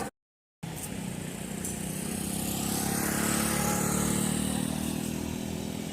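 Engine of a passing motor vehicle, a steady low hum that swells to its loudest midway and fades away. It follows a brief dead-silent dropout from an edit cut.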